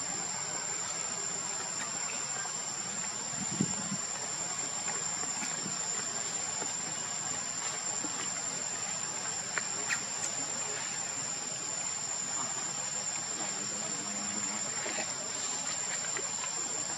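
Steady, high-pitched insect drone, with a few faint clicks about three and a half seconds and ten seconds in.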